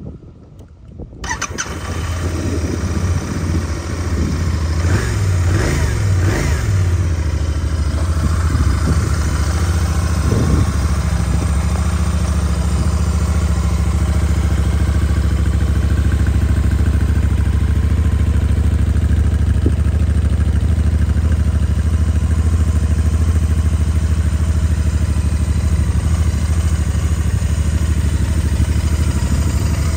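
Royal Enfield Interceptor 650's air-cooled parallel-twin engine idling. The sound comes in suddenly about a second in, runs a little unevenly for a few seconds, then holds a steady, even idle.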